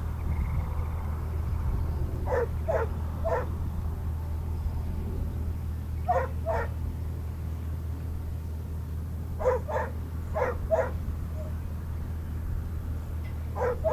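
A dog barking in short groups of two or three, about ten barks in all, over a steady low hum.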